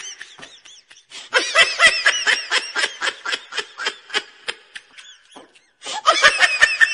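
High-pitched giggling laughter: quick runs of short 'hee-hee' pulses, several a second. It breaks off about a second in, runs on, stops for about a second near the end, then starts again.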